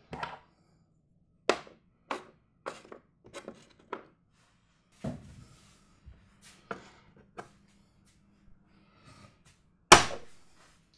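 Chess pieces being set down on a board: a run of irregular clacks and knocks, with a short stretch of sliding noise about five seconds in and the loudest knock near the end.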